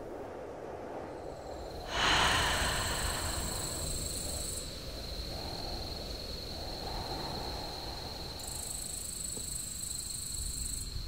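Outdoor ambience: steady low background noise with a thin, unbroken high-pitched tone, and a rushing swell about two seconds in that fades over the next few seconds.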